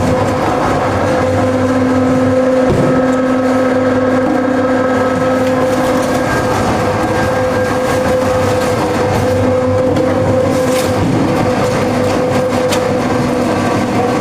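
MDM (mechanically deboned meat) separator machine running steadily: a loud, even mechanical hum with a held tone and light rattling.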